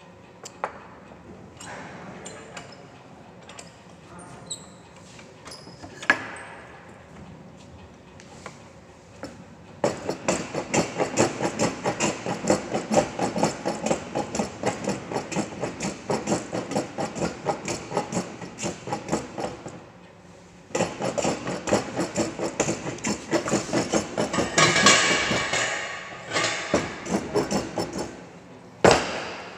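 Jack plane shaving a wooden workpiece in quick, short strokes of about three a second, in two runs with a brief pause between them, as the stock is planed square on its sides. A few sharp knocks come before the planing starts, and a loud knock comes near the end.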